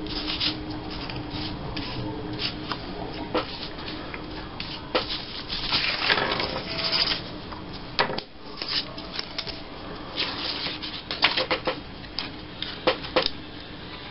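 Paper strips and scraps rustling and sliding on a tabletop as they are handled and laid down, with scattered light taps and clicks.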